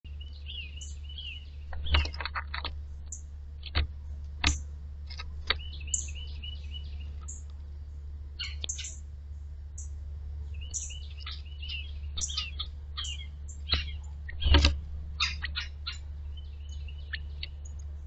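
Wild songbirds chirping and calling throughout, with runs of quick repeated notes, over a steady low hum. A few sharp knocks break in, the loudest about three-quarters of the way through.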